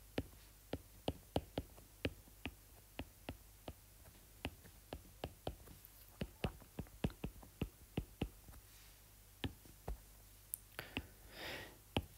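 Stylus tip tapping on a tablet's glass screen during handwriting: faint, irregular clicks, about two to three a second. A brief soft hiss near the end.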